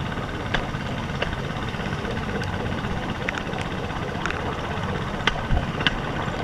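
Bamboo train (norry) running along the rails: a steady drone from its small engine and wheels, with sharp, irregular metallic knocks as the wheels ride over the rough track.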